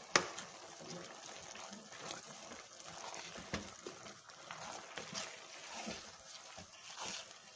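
Lemon juice trickling and splashing into a metal pot of wet rice-and-herb stuffing as it is mixed, with scattered sharp knocks against the pot.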